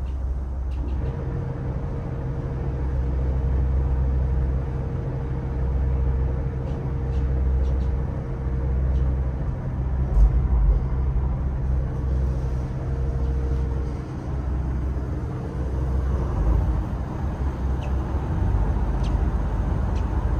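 A trawler's single John Deere diesel running at low speed as a steady low rumble, with a bow thruster whining over it: the whine starts about a second in, cuts out and in again twice, and stops about three-quarters of the way through as the boat is worked off the dock.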